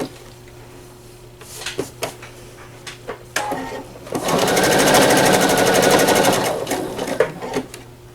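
PFAFF Quilt Expression 4.0 sewing machine stitching at speed for about two and a half seconds, starting about four seconds in, with a few light clicks before and after.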